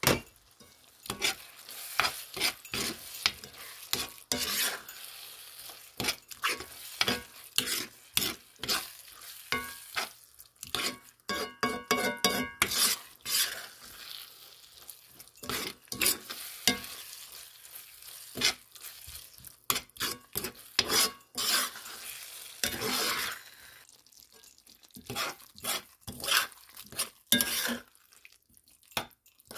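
Metal spoon stirring and scraping corn kernels around a skillet in quick, irregular strokes, with the frying corn sizzling underneath. Once or twice the spoon rings against the pan.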